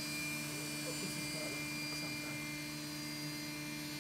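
Ultimaker 2 3D printer humming steadily, a few constant tones from its fans and electronics, with the print head parked and not yet moving at the start of a print.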